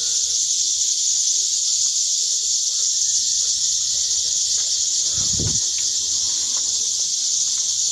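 A steady, loud high-pitched hiss that does not change, with a brief low thump about five seconds in.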